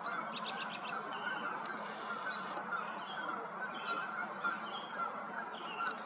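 A steady, dense chorus of many birds calling at once, with a quick run of about six high chirps about a second in.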